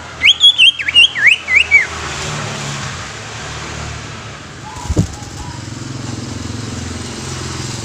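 Green leafbird (cucak ijo) singing a quick run of loud whistled notes that swoop up and down, lasting about two seconds at the start. After it comes a steady low hum, with a short low thud about five seconds in.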